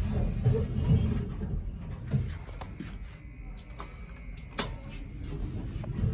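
Elevator doors sliding, over a low rumble. A faint steady high tone sounds through the middle, and there is a sharp click about four and a half seconds in.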